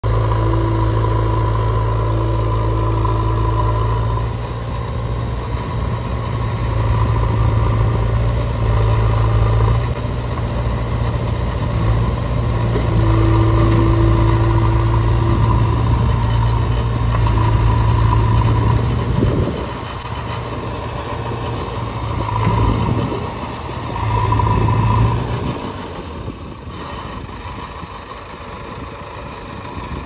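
JCB 3DX backhoe loader's diesel engine running steadily, rising and falling in level as the machine works, with a high whine coming and going; it eases off over the last few seconds.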